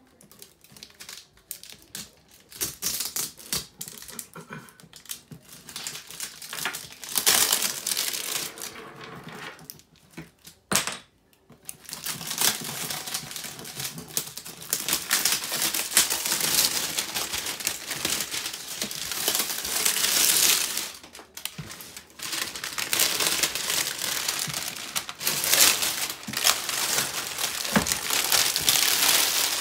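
Cardboard shipping box being torn open and unpacked by hand: cardboard and packing tape tearing, scraping and crinkling in irregular spells, with a short pause about eleven seconds in.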